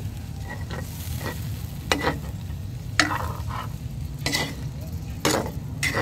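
Sauce sizzling in a wok as tulingan pieces simmer and the sauce cooks down, with a metal spatula scraping and tapping against the pan several times.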